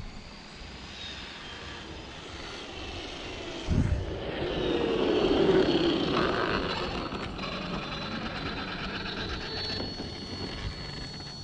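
Arrma Senton 6S RC truck's brushless motor and drivetrain whining on a full-speed pass, getting louder and then dropping in pitch as it goes by. A short thump comes just before the loudest part.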